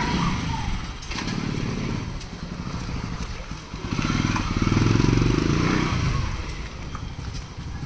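A small engine running steadily, speeding up and getting louder about four seconds in, then easing back down around six seconds.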